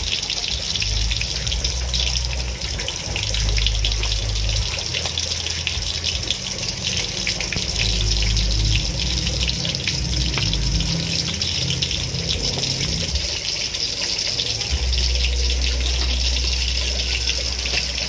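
Whole tilapia deep-frying in a wok of oil: a steady sizzling hiss dense with small crackles, over a low rumble.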